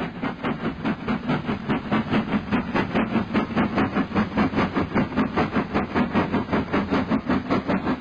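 Model train running across the layout with a steady, even beat of about five or six strokes a second.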